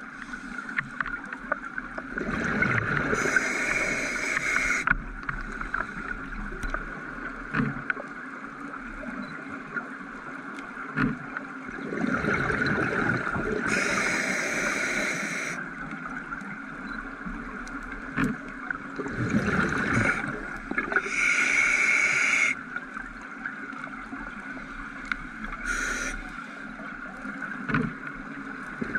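Scuba diver breathing through a regulator underwater: bursts of bubble and breath noise every few seconds over a steady underwater hum, with scattered faint clicks.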